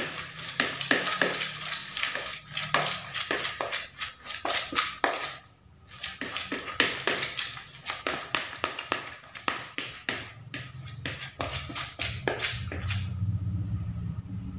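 Hands mashing and kneading a crumbly fish-meat bait mix in a plastic bowl: rapid scratching and clicking of fingers against the bowl. It pauses briefly about five seconds in and stops shortly before the end.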